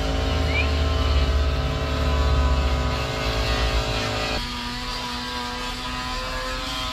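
A man imitates an outboard motor with his mouth, a low buzzing put-put for about three seconds, with steady background music underneath that changes chord partway through.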